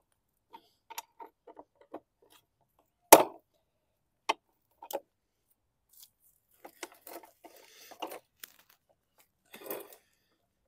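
Irregular metal clicks and knocks of a 9/16 wrench working a wheel nut and a push reel mower's wheel being pulled off. There is one sharp knock about three seconds in, and more clunks and rustling near the end.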